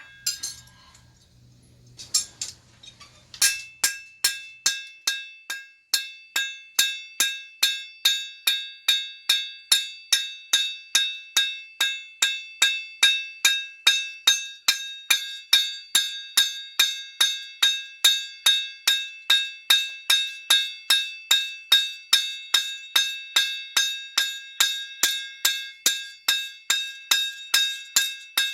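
Hand hammer striking a steel bar on an anvil in cold forging. After a few scattered blows over a faint low hum, it settles into a steady rhythm of about three blows a second, each leaving a bright metallic ring.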